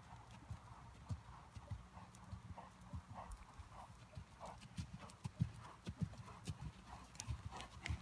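Hoofbeats of a ridden bay horse moving at a trot on a sand arena: a steady rhythm of soft, dull thuds, a couple or so a second.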